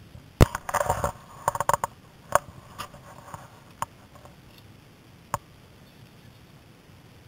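Mountain bikes passing close by on a gravel dirt track: a quick run of sharp clicks and rattles with a short ringing note in the first two seconds, then a few single clicks further apart.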